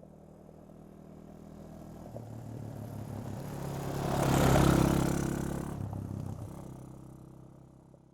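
Quad bike engine driving past: it grows louder as it approaches, passes closest about four and a half seconds in, then drops slightly in pitch and fades away.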